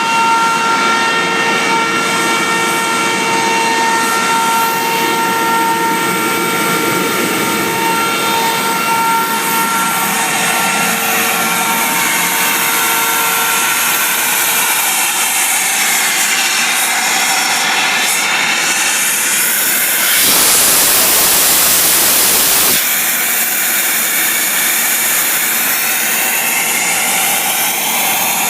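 Sullair LS100 40 hp rotary screw air compressor, driven by a three-phase electric motor, running steadily with a high whine that gives way to an even rush about halfway through. About twenty seconds in, a loud hiss cuts in for two or three seconds and stops suddenly.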